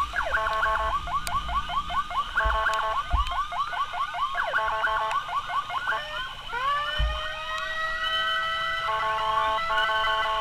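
Ambulance siren in a fast yelp, rapid repeated rising chirps, switching about six seconds in to a wail that winds up in pitch and then holds a steady tone.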